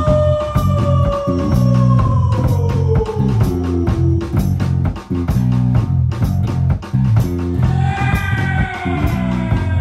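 A band playing: electric bass guitar and drum kit in a steady beat. A long note slides slowly down in pitch over the first few seconds, and a higher note comes in near the end.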